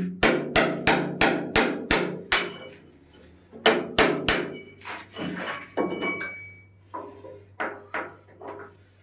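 Repeated hammer blows at about three a second: a run of seven hard strikes, a short pause, three more, then lighter, more spaced strikes near the end.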